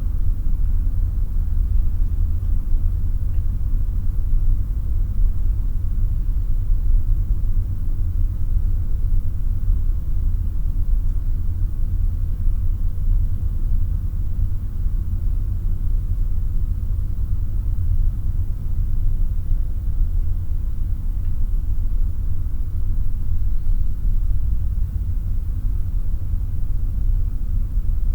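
Room atmosphere (room tone): a steady low rumble with a faint thin hum above it, unchanging, with no distinct events.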